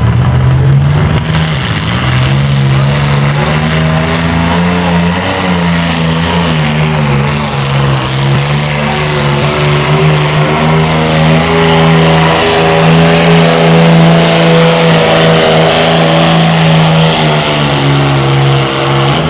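Pulling tractor's engine at full throttle, held at high, steady revs as it drags the weight-transfer sled down the track; the revs fall away right at the end.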